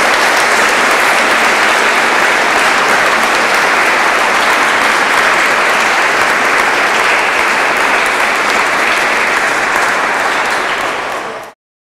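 Audience applauding steadily, then cut off abruptly near the end.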